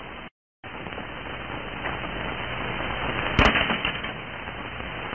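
Steady hiss of an old dubbed film soundtrack, broken by a short dropout just after the start. There is one sharp knock about three and a half seconds in.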